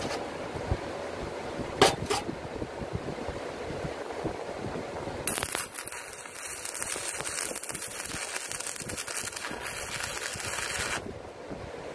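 Arc from an 80-amp Harbor Freight stick welder crackling and hissing steadily for about six seconds while tacking steel, starting about five seconds in and cutting off sharply. Two sharp clicks come about two seconds in.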